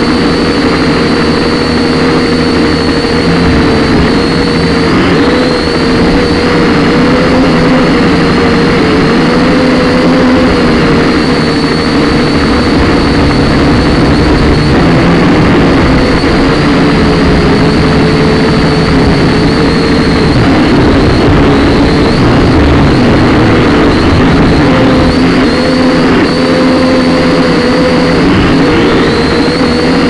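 Syma X5C toy quadcopter's small electric motors and propellers whining loudly in flight, heard close up through its own onboard camera. The pitch wavers up and down again and again as the motors speed up and slow down.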